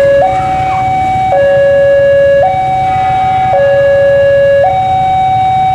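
Railway level-crossing warning alarm sounding its two-tone high-low signal, switching between the two pitches about once a second, over a low rumble.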